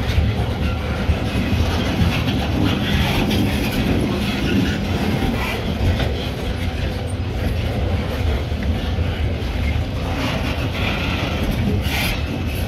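Loaded freight cars of a train rolling past over a grade crossing: a steady rumble of wheels on rail with scattered clicks and knocks as the train climbs the grade.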